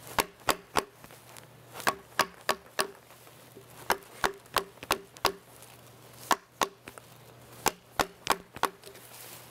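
Wooden mallet striking the butt of a carving chisel as it pares wood from a log: sharp knocks in runs of three to five, about three a second, with short pauses between runs.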